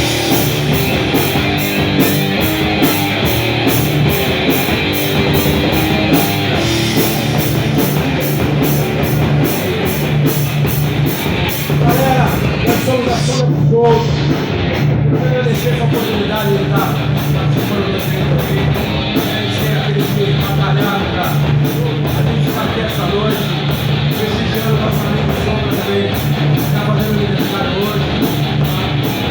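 Rock band playing live: electric guitars, bass and drums in a heavy rock groove, with cymbal strokes keeping a steady beat.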